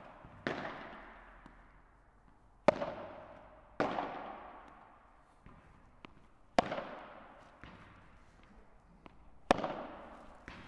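Padel balls struck hard by rackets in a forehand drill: sharp pops every one to three seconds, each ringing out for about a second, with fainter ticks of the ball between.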